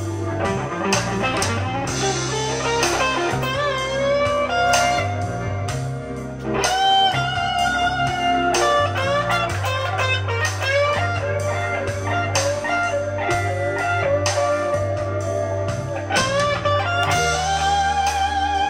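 Overdriven electric guitar lead from a Fernandes Les Paul copy through a Mesa/Boogie Mark IV amp, improvising in G minor over a backing track of bass and drums. It plays long sustained notes with bends rising into pitch and wide vibrato.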